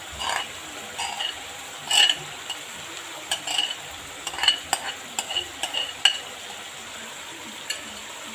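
Chicken frying in a karahi with a steady sizzle, over which a spoon scrapes and taps irregularly against a bowl as spiced yogurt is scraped out into the pan.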